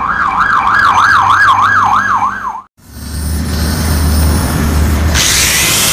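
An electronic siren wailing quickly up and down, about three swoops a second, stops abruptly a little over halfway through. After a brief gap, a low rumble starts, joined near the end by a loud, harsh hiss.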